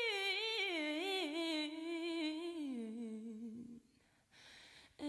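Soundtrack music: a solo wordless voice, humming or singing, comes off a held high note and sinks slowly in a line with vibrato, falling silent about three and a half seconds in.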